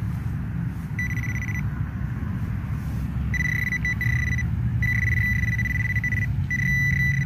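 Handheld metal-detecting pinpointer sounding a steady high tone that keeps cutting in and out as the probe is worked through wood mulch over a buried coin: the tone is its target alert. A low rumble runs underneath.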